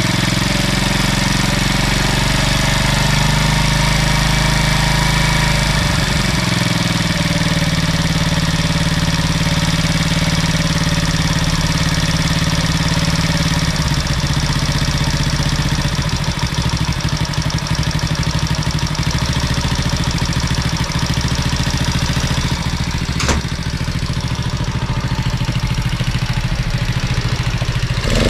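50 cc moped engine idling steadily, no longer revving up by itself now that an intake air leak has been sealed. A single sharp click sounds late on.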